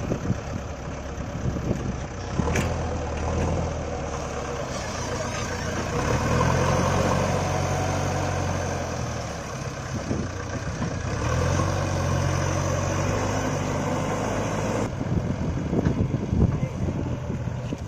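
JCB 3DX backhoe loader's diesel engine running, its revs rising and falling back several times as the machine works.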